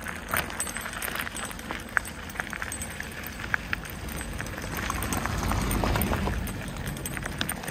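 Bicycle tyres rolling over loose crushed-stone gravel, a continuous crunch with many small clicks and rattles of stones and bike parts. About five seconds in, a low rumble swells and eases off as a car passes close by on the gravel.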